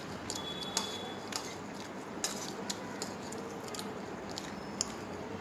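A metal fork clinking and scraping against a plate while gathering noodles: several short, sharp light clicks a fraction of a second to a second apart, over a steady background hiss.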